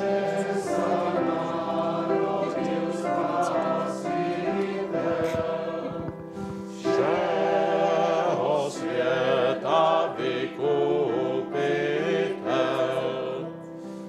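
A group of men singing a song together in chorus, with a short break between phrases about halfway through.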